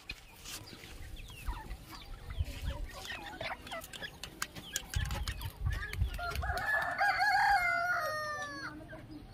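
Grey francolin (desi teetar) calling loudly: a run of wavering, repeated notes starting about six seconds in, loudest around seven to eight seconds. Small birds chirp throughout, with a few low thumps.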